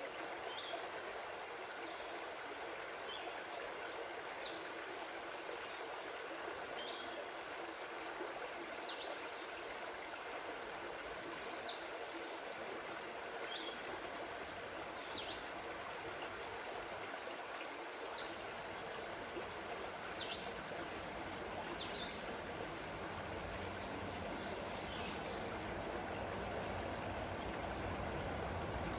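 Shallow rocky creek running: a steady sound of flowing water, with short high chirps every second or two and a low rumble coming in over the last few seconds.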